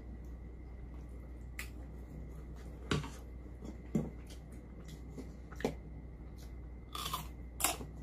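A person eating rice in spicy yukgaejang soup with a plastic spoon: scattered short smacks and clicks of chewing and spoon against the bowl, the sharpest cluster near the end, over a faint steady hum.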